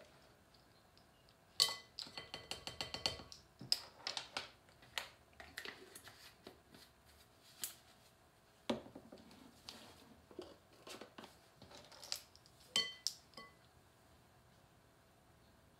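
Metal measuring spoons clinking and tapping against a mixing bowl and spice containers while dry spices are measured out. There is a quick run of ringing taps about two seconds in, then scattered clicks and knocks, with a last sharp ringing tap near the end.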